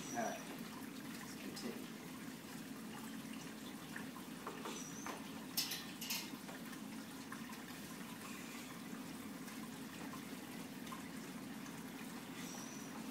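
Beer wort running from a brew kettle's valve through a plastic tube into a glass carboy, a faint steady trickle. A few short knocks and clinks near the start and again about five seconds in.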